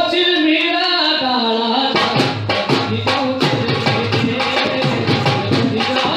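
Rajasthani folk music: a long brass horn plays a wavering melody alone, and about two seconds in drums join with a quick, steady beat under it.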